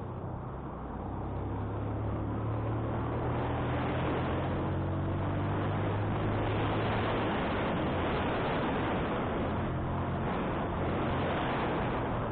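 Motorcycle engine running steadily while climbing, under a heavy rush of wind noise on the microphone; it gets a little louder about a second or two in.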